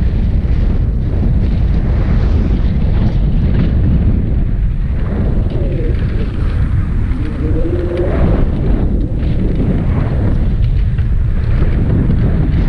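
Heavy wind buffeting on a mountain bike's on-board camera as it rides fast down a dirt jump line, with tyres running on dirt and the bike rattling over the jumps. A brief wavering whine comes in about halfway through.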